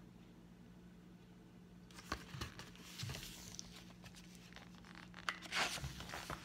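Picture books being handled on a table: paper and covers rustling, with a few light knocks from about two seconds in and louder rustling near the end, over a faint steady hum.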